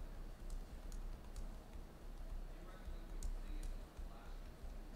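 A few scattered clicks of typing at a computer keyboard, over a low steady hum.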